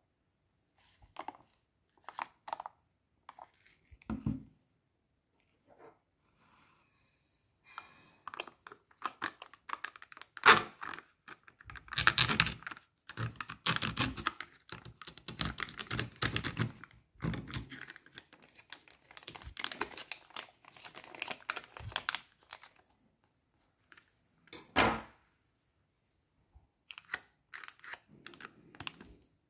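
Thin plastic seal on a tub being cut with a serrated knife and peeled back: irregular crinkling, crackling, tapping and tearing of plastic. It is sparse at first and densest in the middle, with one louder knock near the end.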